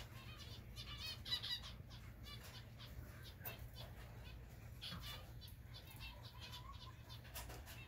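Zebra finches calling: many short chirping calls in quick succession, busiest about a second in, over a steady low hum.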